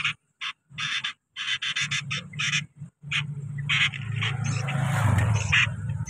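Sooty-headed bulbul nestlings giving a quick string of short, harsh begging calls, typical of chicks asking to be fed. A low steady hum runs underneath from about halfway.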